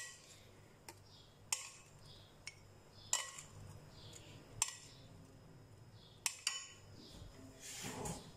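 A white serving spoon scooping salad from a cut-glass serving dish into a small glass bowl: about six light clinks and taps a second or more apart, with a soft scraping swell near the end.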